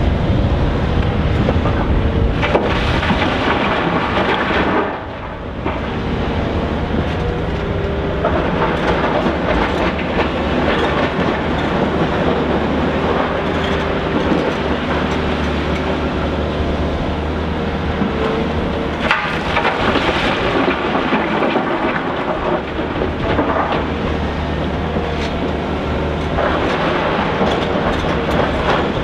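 Volvo EC460BLC crawler excavator's diesel engine working under load, while its steel bucket scrapes and clatters through crushed rock. The sound eases briefly about five seconds in.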